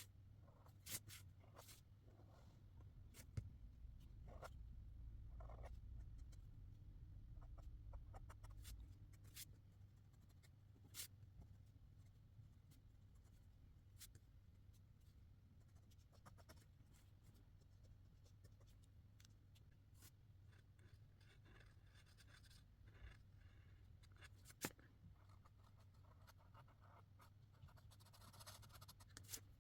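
Faint felt-tip marker strokes on paper, a soft scratchy rubbing that comes and goes, with scattered sharp ticks.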